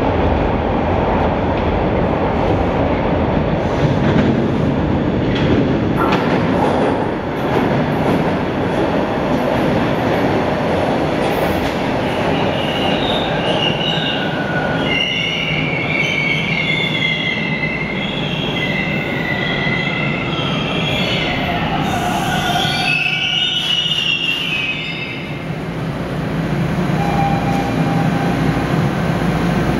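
Toronto TTC subway train pulling into the station: a heavy, loud rumble as it comes in, then high, wavering squeals as it brakes from about halfway through. The squealing stops a few seconds before the end as the train halts, leaving a steadier hum.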